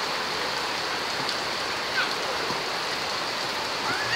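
Steady rain falling on a wet concrete street, an even hiss.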